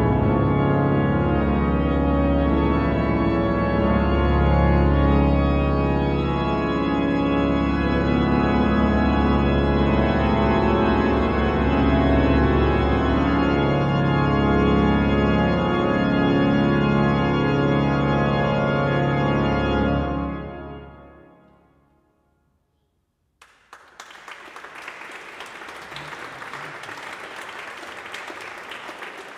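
Chapel pipe organ playing a full, sustained passage that ends a piece about twenty seconds in, the last chord dying away in the chapel's reverberation. After a moment of silence the audience applauds.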